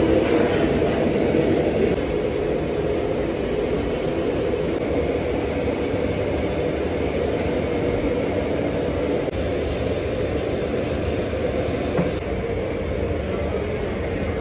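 Steady low roar of a commercial kitchen's extractor hoods and gas burners running, with a faint knock about twelve seconds in.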